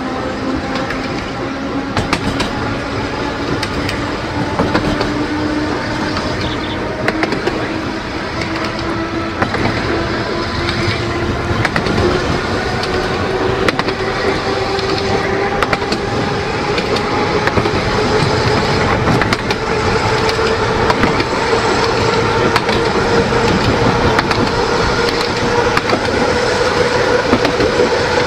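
Narrow-gauge electric tramcar running along the track: the traction motors whine, rising steadily in pitch as the tram picks up speed, over the rumble of the wheels on the rails with scattered clicks.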